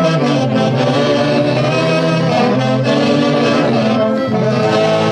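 Band music, with saxophones and brass playing a sustained melody at a steady volume.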